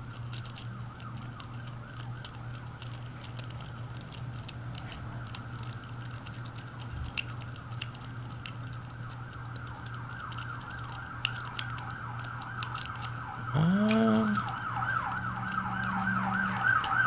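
A City Rake working the pins of a cheap pin-tumbler deadbolt under tension from a Z-bar wrench: rapid, irregular metallic clicking and scraping in the keyway, over a steady low hum. A fast-wavering high whine grows louder over the second half.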